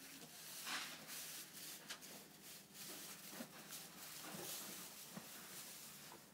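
Faint rustling and irregular soft scuffs in straw bedding as a newborn foal and its mare shift their hooves about the stall.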